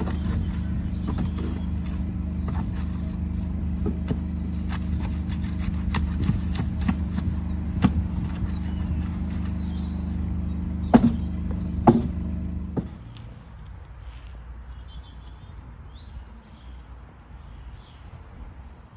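Steel shovel scraping and turning lime mortar in a wooden trough, with occasional knocks, the sharpest two about eleven and twelve seconds in. A steady low mechanical hum runs underneath and stops about thirteen seconds in, leaving faint bird chirps.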